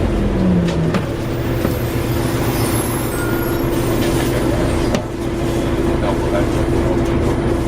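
Volvo Olympian double-decker bus heard from inside, engine and driveline running under way with a steady drone; the pitch drops in the first second, as the revs fall at a gear change, with a few knocks and rattles.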